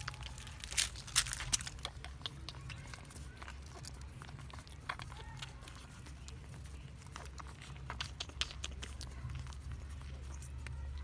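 A litter of puppies suckling at their mother's teats: an irregular run of small clicks and smacks, thickest about a second in, over a steady low rumble.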